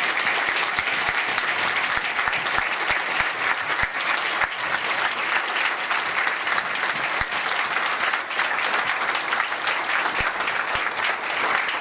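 Audience applauding, a sustained steady round of clapping.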